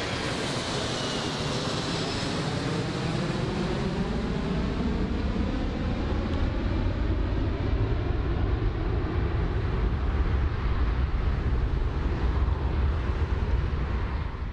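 Jet engines of a four-engine airliner flying away: a steady rush of engine noise with a whooshing tone that slides down in pitch, and a deep rumble that grows stronger toward the end.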